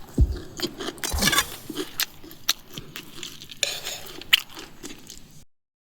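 A person chewing and crunching chatpate, a crisp puffed-rice snack, with irregular sharp crunches; the sound cuts off suddenly about five and a half seconds in.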